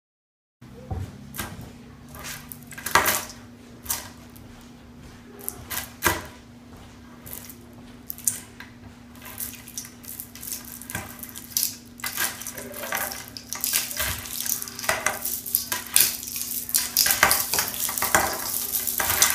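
A tangled bundle of Christmas string lights being handled and shaken: plastic bulbs and wire clicking, rustling and rattling against each other in quick irregular bursts. It starts about half a second in and grows busier and louder toward the end.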